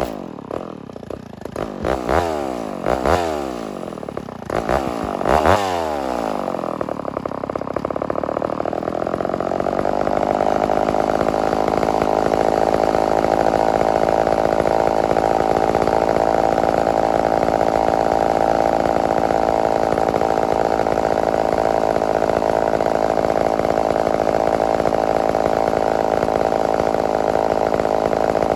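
Homelite Super XL-923 82cc two-stroke chainsaw in stock, unported form, blipped up to speed and back three times, then held at steady high revs for the rest of the time.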